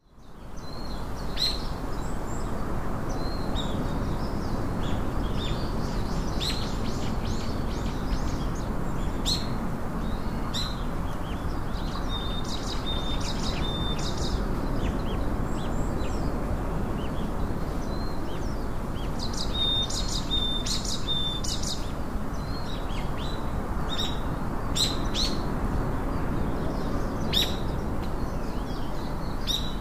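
Small songbirds chirping, with short high calls, quick falling notes and a couple of brief trills, over a steady background hiss.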